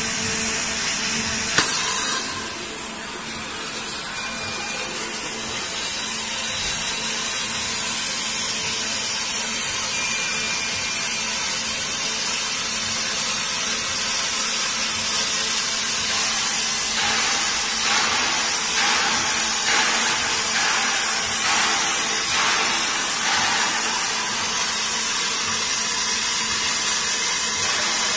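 5-axis waterjet cutter's high-pressure jet hissing steadily as it cuts through a sheet of glass, with one sharp pop about a second and a half in.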